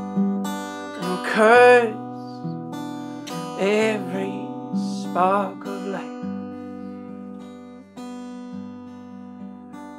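Acoustic guitar playing a song, with a man singing three short phrases with vibrato in the first six seconds; after that the guitar plays on alone, a little quieter.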